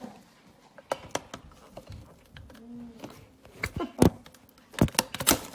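Irregular sharp clicks and knocks of hard plastic parts of an electric burr coffee grinder being handled, the loudest cluster about four to five seconds in.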